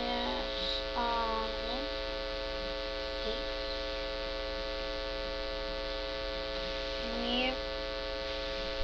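Steady electrical mains hum with many even overtones, a constant drone. Brief faint vocal sounds rise over it just after the start, about a second in, and again near the end.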